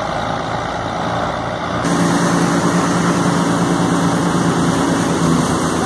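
A tractor-driven thresher runs steadily as straw is fed into it, with the engine of the Belarus 510 tractor running under load. About two seconds in, the sound gets louder and a steady low hum comes forward.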